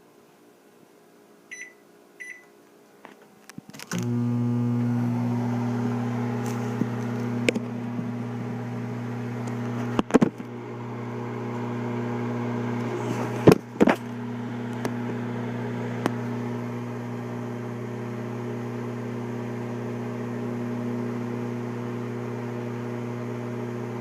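Microwave oven keypad beeping twice, then about four seconds in the oven starts and runs with a steady hum. A few sharp clicks break through the hum partway through.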